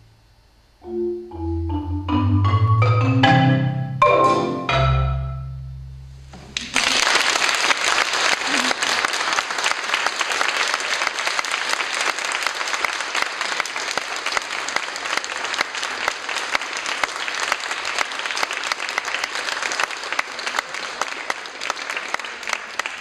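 Marimba played with mallets: the closing notes of the piece, a short rising figure over ringing low bass notes, ending on a long low note that dies away. About seven seconds in, audience applause begins and continues steadily.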